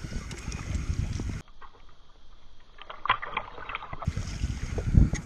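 Water splashing and sloshing against the action camera's housing as a hooked trout is brought alongside the boat. About a second and a half in the sound turns muffled for a couple of seconds as the camera dips into the water, with a few splashes, then opens up again. There is a loud knock near the end.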